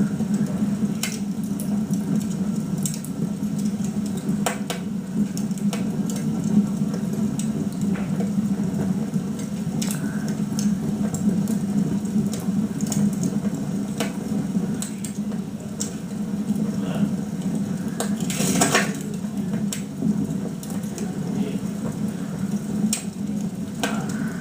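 Wood fire crackling, with scattered sharp pops and one longer crackle about three quarters of the way through, over a steady low hum.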